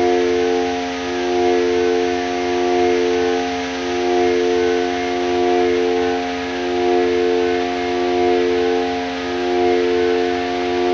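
Korg Volca Modular synthesizer playing an FM drone: several steady pitches held together over a bed of hiss, the whole sound swelling and fading about every second and a half.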